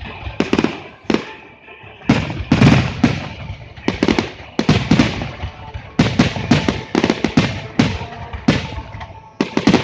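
Fireworks display: aerial shells bursting in a steady barrage of sharp bangs, about two a second, each trailing off in an echo. There is a short lull about a second in, and the bangs come thicker from two seconds on.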